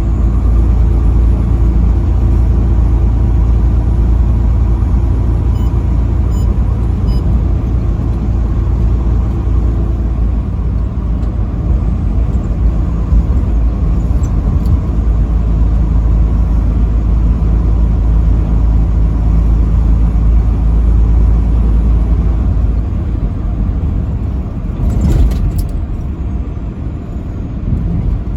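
Engine and road noise of a vehicle cruising on the highway: a steady, loud low rumble with an engine hum whose pitch changes about ten seconds in. A brief rush of noise comes about three seconds before the end.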